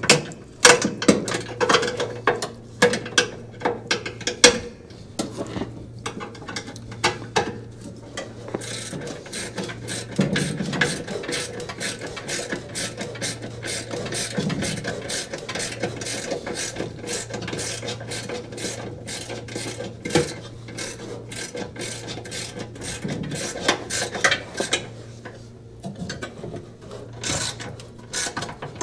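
Ratchet wrench clicking in quick runs as it tightens the bolts holding new brake pads on a Speed Queen washer's transmission, over a low steady hum.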